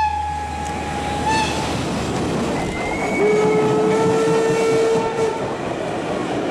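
Historic passenger train hauled by an E94 electric locomotive passing close by, its wheels rolling and clattering over the rails. A train horn sounds, holding one long steady note from about three to five seconds in.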